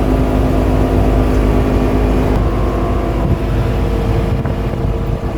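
Polaris side-by-side off-road vehicle's engine running steadily while driving, over a heavy low rumble. Its note shifts slightly a little over two seconds in.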